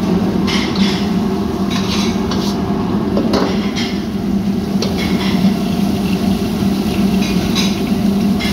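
A metal ladle and spatula clanking and scraping against a steel wok during stir-frying, in repeated short strokes. Under it the gas wok range keeps up a steady roar with a low hum.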